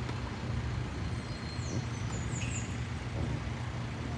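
Steady low outdoor background rumble, with a few faint high chirps about halfway through.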